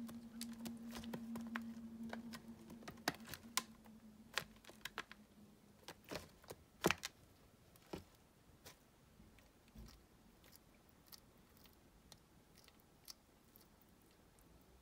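Irregular small clicks and crunches from a baby tegu feeding on crickets in a plastic tub, thickest and loudest around six to seven seconds in, then thinning out. A low hum stops about two seconds in.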